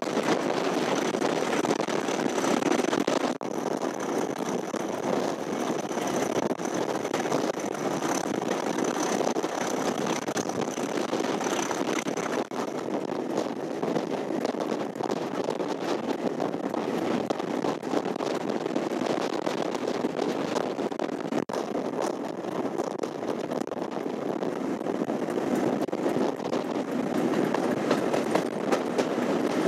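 Diesel locomotive running steadily while hauling a train, with wheel and rail noise, heard from the window of the coach just behind it. A faint high whine sits over the engine for the first dozen seconds, then stops.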